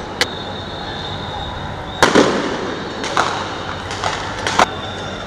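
Police gunfire: sharp, irregular shots, one just after the start, a quick cluster about two seconds in, then several more over the next few seconds, over a steady din of the street.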